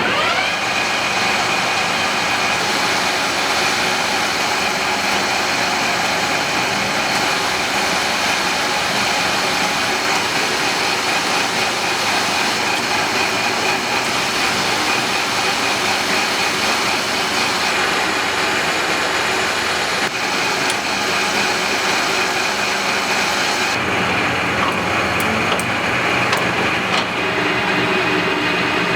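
BT500×1500 mm lathe running: a steady mechanical whine that rises as the machine comes up to speed at the start, then holds, with a change in tone about 24 seconds in.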